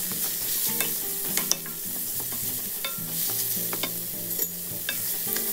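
Raw minced pork frying in hot oil with pounded chilli and garlic in a stainless-steel wok: a steady sizzle, with a wooden spatula stirring and making irregular scrapes and taps against the pan.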